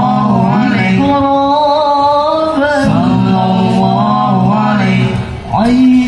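Male voices singing a devotional chant in hadrah banjari style, with long held notes that waver and slide ornamentally between pitches. The singing breaks off briefly near the end.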